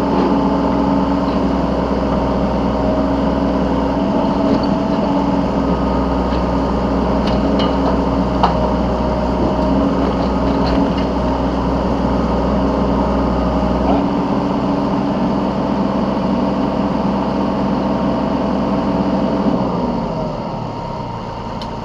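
Yanmar B3 Sigma 3-ton mini excavator's diesel engine running steadily at working revs, with a few light knocks, then dropping to idle near the end.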